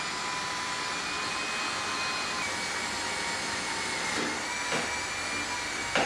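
Cordless drill with a 1/8-inch bit running steadily as it drills a pilot hole through an aluminium diamond plate rocker panel, its motor whine holding an even pitch. A few light knocks come in the second half.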